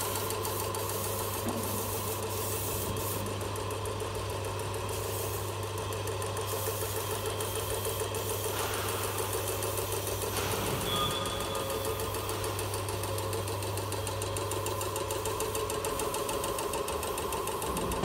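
Portable piston air compressor running steadily, its motor and pump making a constant low hum with a fast, even knocking rhythm while it supplies air to a paint spray gun.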